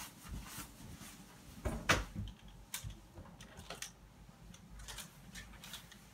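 Handling noise from taking a jacket down off a door hook: scattered clicks and rustles of plastic clothes hangers and fabric, with one sharp knock about two seconds in.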